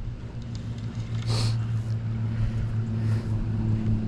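An engine running with a steady low hum. A short hissing burst comes about a second and a half in, and a fainter one near three seconds.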